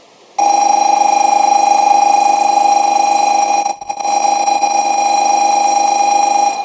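A loud, steady ringing warning signal as the 0-series Shinkansen arrives at the platform. It starts suddenly, breaks off briefly a little past halfway, then stops with a short ringing fade.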